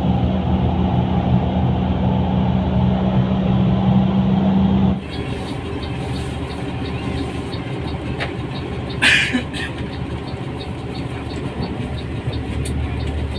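Diesel engine of a front-engined Mercedes-Benz OH 1623 bus running steadily. Its sound changes abruptly about five seconds in, and there is a short burst of hiss about nine seconds in.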